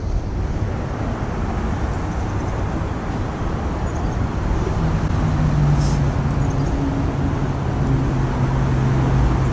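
Steady road-traffic rumble, growing slowly louder, with an engine's low hum coming in about halfway through.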